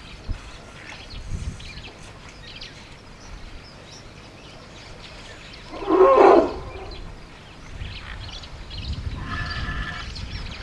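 African elephant giving one loud, short roar about six seconds in, followed near the end by a fainter, higher call; wind rumbles on the microphone.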